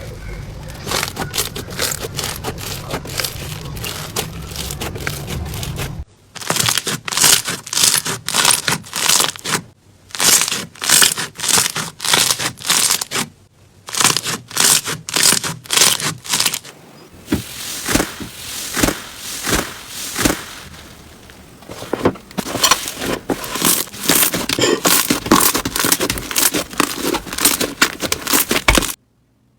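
Crunchy slime being squeezed and pressed by hand, giving repeated crackling squishes, roughly one or two a second. The sound changes abruptly about six seconds in and cuts out just before the end.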